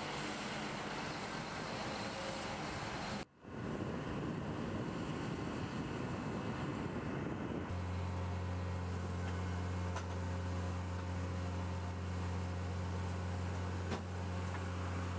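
Steady engine and machinery noise, broken by a brief dropout about three seconds in. From about eight seconds in, a steady low hum from the engine of an aircraft cargo loader running.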